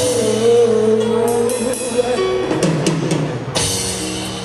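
Live gospel band music: a drum kit with snare and cymbal hits under long held notes that waver and slide in pitch.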